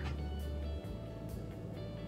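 Quiet background music with sustained, held notes.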